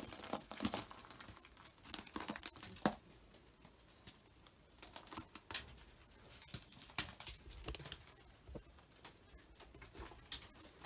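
Footsteps on a floor of dry straw and scattered debris in a wooden shed: faint, irregular crackles and rustles.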